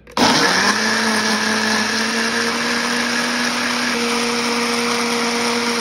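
Ninja blender motor running at full speed with the blender cup locked on, puréeing a salsa verde of charred tomatillos and jalapeño. It starts suddenly and holds a loud, steady whirring whine.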